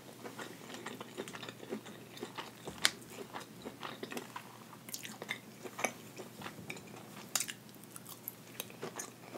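Close-up chewing and mouth sounds of someone eating hibachi steak, chicken, shrimp and vegetables, with scattered sharp clicks as a metal fork picks food from an aluminium foil pan.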